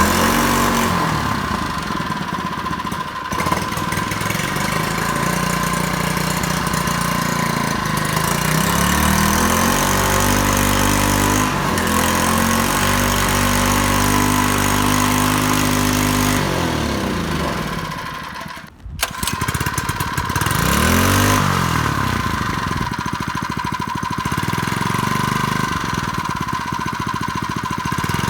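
Harbor Freight Predator 79cc single-cylinder four-stroke engine running, its throttle worked by a remote-controlled servo: it idles, revs up and holds high for several seconds, drops back, then after a short break revs up and down once more and settles back to idle.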